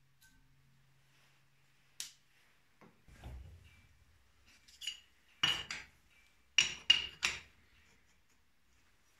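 Metal clinks and clanks of protective jaw inserts being handled and set onto a steel bench vise's jaws. There is a light tap about two seconds in, then a run of sharp, ringing metal knocks from about five to seven and a half seconds in.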